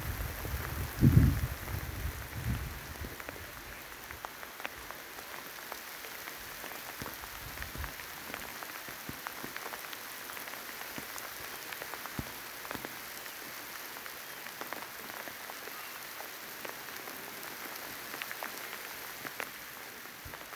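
Rain falling: a steady hiss with many separate drops ticking. A few low thumps come in the first few seconds, the loudest about a second in.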